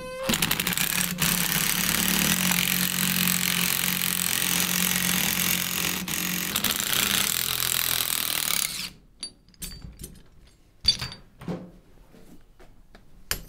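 A power ratchet runs steadily for about nine seconds, turning a bearing puller's forcing screw against the shaft end to press the shaft out and pull the wheel bearing off. It stops suddenly, and a few light metal clicks follow.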